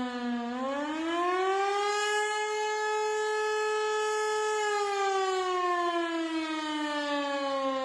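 Siren wail in an alternate Emergency Alert System alarm, a civil-defense-style siren tone. It rises in pitch about half a second in, holds steady for a few seconds, then slowly winds down.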